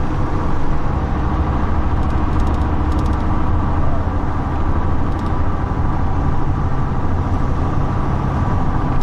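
Steady low rumble of a car driving: engine and road noise heard from inside the cabin.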